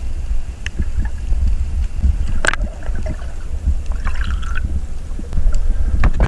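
Seawater sloshing and gurgling close to the microphone over a heavy, uneven low rumble, with a few sharp clicks, the loudest about two and a half seconds in.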